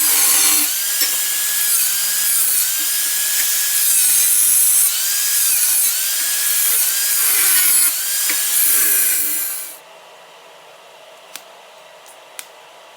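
A hand tool worked back and forth on scrap steel in repeated strokes, about one a second, each with a rising-then-falling screech. The strokes stop abruptly near the end, leaving a quieter steady hum with a few sharp clicks.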